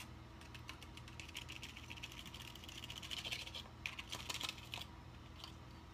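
Small plastic applesauce cup being emptied and scraped out over a stainless steel mixing bowl: a run of light clicks and taps, with a soft scraping hiss from about two to three and a half seconds in.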